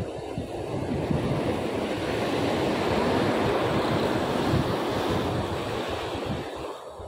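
Ocean swell breaking and washing over the rocks at the foot of a sea cliff. The surge builds to its loudest about halfway through and dies down near the end, with wind buffeting the microphone.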